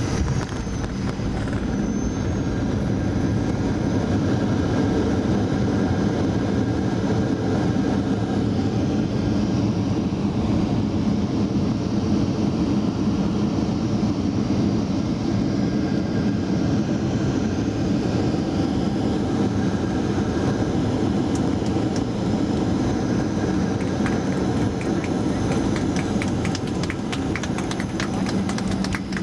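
Cabin noise of a Boeing 737-800 rolling along the runway after touchdown: a steady, dense rumble of its CFM56 turbofan engines and its wheels on the concrete, with light clicking rattles in the last several seconds.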